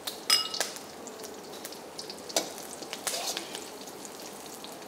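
Dried red chillies, curry leaves and cumin sizzling and crackling in hot oil, the tempering stage of a South Indian curry, while a metal spatula stirs them. The spatula clinks against the pan, most sharply about a third of a second in.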